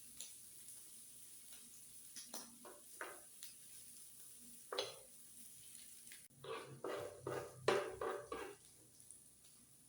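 Metal utensils clinking and scraping on a flat griddle while pasta is stirred and tossed, over a steady sizzle. There are scattered single strokes, then a quicker run of them about six to eight and a half seconds in.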